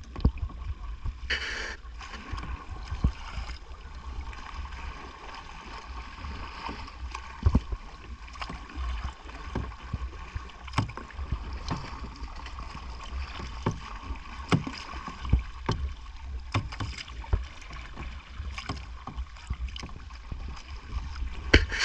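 Kayak paddles dipping and splashing in lake water, with scattered knocks and clicks and a brief louder splash about a second and a half in. A steady low rumble of wind on the microphone runs underneath.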